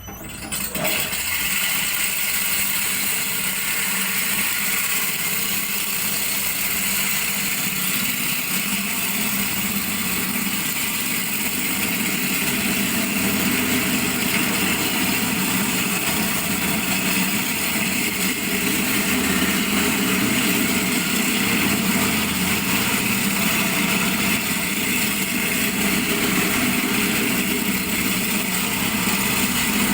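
VFD-driven grinding machine starting about half a second in, then running steadily at speed with a loud, even grinding noise.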